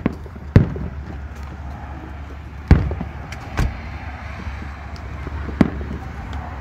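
Aerial fireworks shells bursting: five sharp booms at uneven spacing, the loudest about half a second and two and three-quarter seconds in, with a few fainter pops between, over a steady low rumble.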